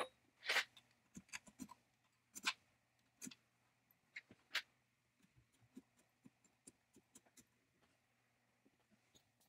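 Light handling noise from working on an electric chainsaw's metal handle and wiring: a sharp click at the start, a short scrape about half a second in, then scattered light clicks and taps that thin out, over a faint steady hum.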